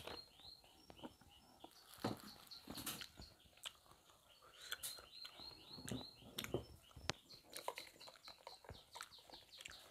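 A quick series of short, falling chirps, about five a second, from a small animal or bird. One run comes near the start and a longer one from about halfway to the end. Among them are scattered crackles and taps as a paper food wrapper is crumpled and a glass with a straw is handled.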